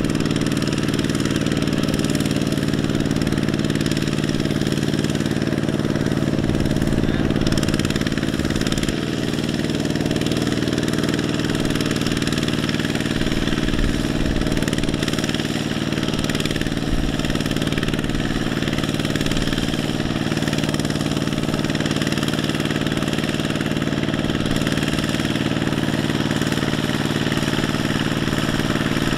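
Two-wheel walking tractor's single-cylinder diesel engine running steadily while it pulls a loaded trailer, with a slight drop in level about nine seconds in.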